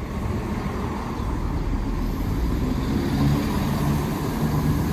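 A pair of coupled class 168 Turbostar diesel multiple units arriving at the platform, their underfloor diesel engines and running gear giving a low rumble that grows slowly louder. A steady engine hum comes in about three seconds in.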